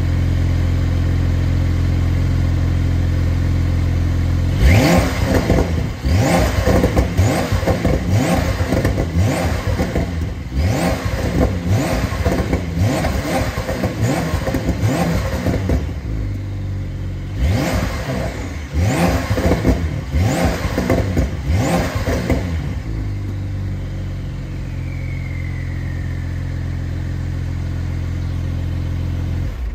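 Stock 2021 Porsche 911 (992) twin-turbo flat-six idling through its factory exhaust, then revved in a long series of quick blips, about one a second, with a short break partway. After the blips it settles back to a steady idle.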